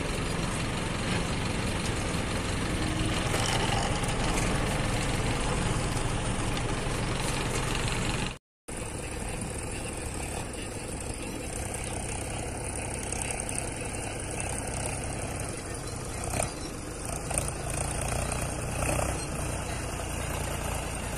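Diesel engine of a JCB 3DX backhoe loader running steadily, heard from its cab, with a few short knocks a little after the middle. The sound cuts out for a moment about eight seconds in.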